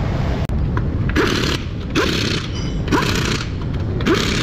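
Impact wrench fired in short bursts, about one a second, running the wheel lug nuts on. Each burst opens with a short rising whine as the motor spins up.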